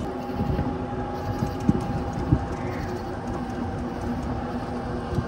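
Golf cart driving along a street: a steady running hum with rolling noise, and two short sharp knocks about two seconds in.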